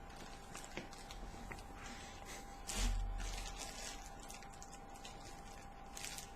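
Faint, irregular small clicks and handling noises, with one louder knock about three seconds in and a faint steady whine underneath.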